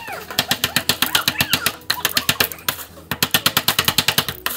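A plastic digging tool scraping rapidly at a chalky plaster dig block, about nine scratching strokes a second, loosening soft powder. The strokes break off briefly a little past halfway, then resume.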